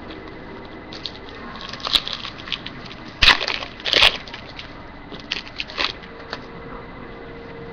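Hockey trading cards and their pack wrapper being handled: rustling and crinkling, with two louder crackles a little after three seconds and at about four seconds.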